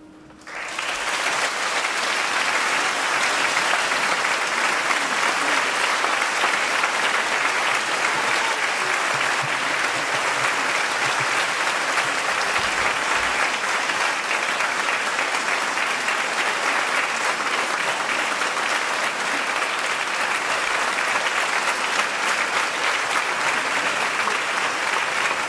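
Large concert-hall audience applauding, breaking out about half a second in and going on steadily at full strength.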